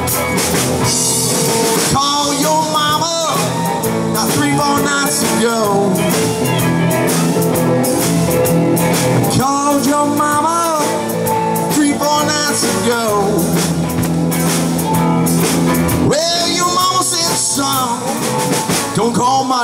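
Live blues-rock band playing with drum kit and electric guitars. A lead line of bending, wailing notes runs over the top, from a harmonica cupped against the vocal mic.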